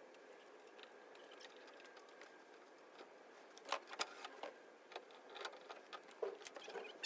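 Irregular light metallic clicks and clinks of hardware being handled while a caster wheel is fitted to a steel tool cabinet. They start about halfway through over a faint steady background hiss.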